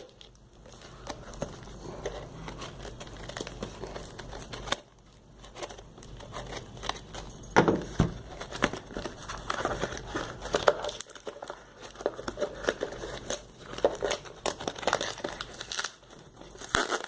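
Parcel packaging being torn open by hand: tape and wrapping crinkling and ripping in irregular bursts.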